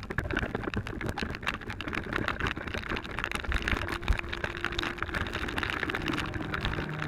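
Torrential rain falling, a dense patter of drop impacts with one heavier knock about four seconds in.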